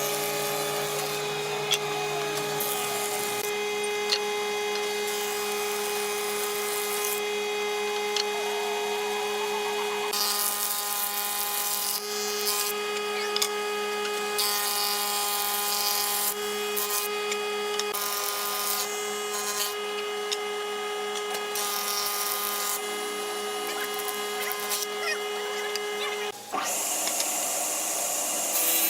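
Electric power tool running steadily in woodworking, its motor giving a constant high whine. About 26 seconds in, the whine breaks off and gives way to a harsher, hissing noise of wood being worked.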